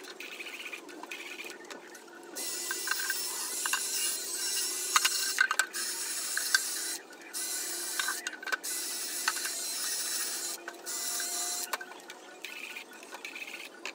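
DeWalt 20-volt cordless drill spinning a soft wire brush against the inside of an outboard motor hood, scrubbing it clean before sanding. The drill runs in bursts of a few seconds with short breaks, a harsh scrubbing hiss, louder from about two seconds in.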